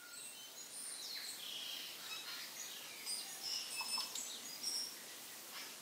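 Birdsong: several birds chirping and whistling in short high calls over a soft, steady hiss.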